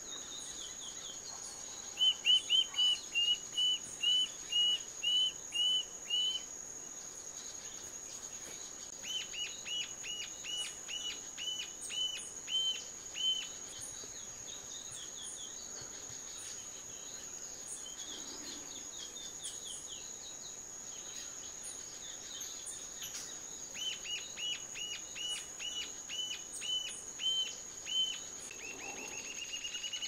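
Rufous-tailed jacamar singing: three runs of high, thin notes, about three a second, each run lasting four seconds or so. A steady high-pitched insect drone runs underneath.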